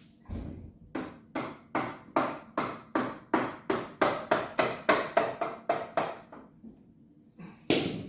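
A hammer tapping repeatedly on a Morris six-cylinder engine's water pump to drive it free of the block, where it is stuck with rust. About sixteen sharp strikes come at roughly three a second, getting louder, then two more blows follow after a pause near the end.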